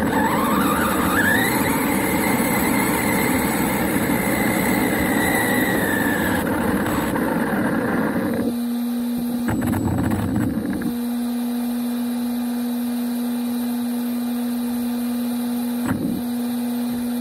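HSP radio-controlled monster truck running on grass: its motor whine climbs in the first second and holds high over rattling drivetrain and tyre noise. About halfway through the driving noise stops and a steady low hum remains, broken twice by short bursts of motor noise.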